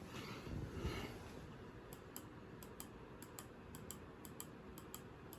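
Faint typing on a computer keyboard: irregular light key clicks, about four or five a second, starting about two seconds in over low room noise.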